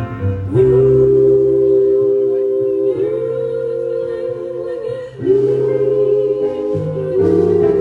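Gospel vocal group singing long held notes in close harmony, with vibrato, over steady low accompaniment notes, in three sustained phrases.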